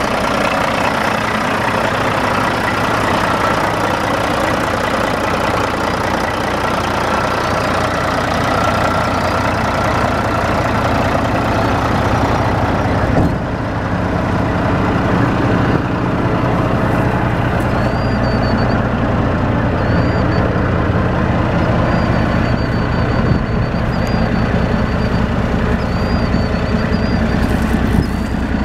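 2005 Peterbilt 379's heavy-duty diesel engine idling steadily.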